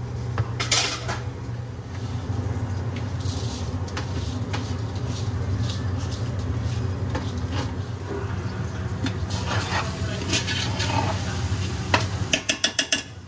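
Drained rice tipped from a metal colander into a large aluminium pot and stirred with a metal spoon: scattered scrapes and knocks over a steady low hum. Near the end comes a quick run of spoon clinks against the pot.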